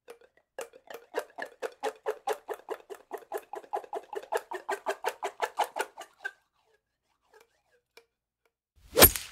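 Cartoon sound effects: a fast, even patter of short squeaky pulses, about seven a second, running for some five seconds. Near the end comes a single loud hit.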